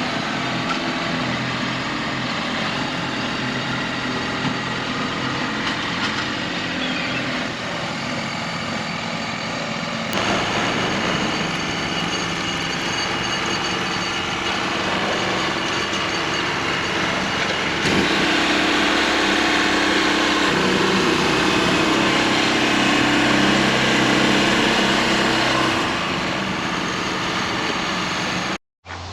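Small gas engine of a Harbor Freight portable bandsaw mill running steadily under load while sawing sweetgum logs. It gets louder about ten seconds in and again a little past halfway, then cuts off abruptly near the end.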